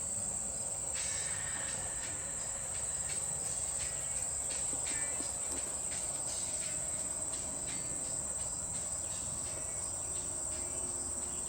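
Steady high-pitched trilling of insects in summer, with faint scattered rustles.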